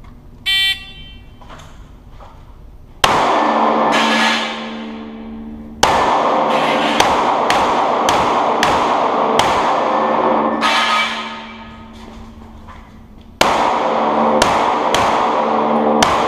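Electronic shot timer beeps just after the start, then a Smith & Wesson M&P pistol fires a string of about a dozen shots, some in quick pairs and some spaced by pauses of a second or more. Each shot rings on with long indoor range reverberation.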